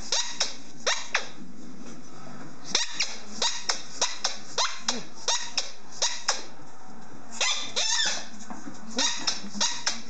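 German Shorthaired Pointer chomping a JW Pet iSqueak rubber ball, squeezing out short, sharp squeaks in runs of about two or three a second, with two brief pauses.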